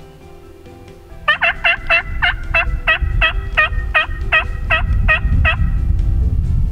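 Wild turkey calling: a steady series of about fourteen loud, evenly spaced notes, roughly three a second, starting about a second in and lasting about four seconds.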